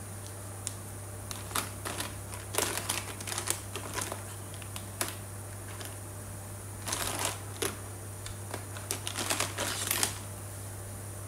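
Plastic marker pens clicking and clattering against each other as a hand rummages through a pile of them, in two bouts of rattling.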